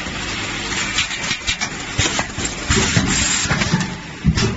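Automatic fastener bagging machine running: a steady mechanical hum with repeated clicks and knocks from its bag-forming and sealing mechanism. There are heavier thuds and a short hiss in the second half.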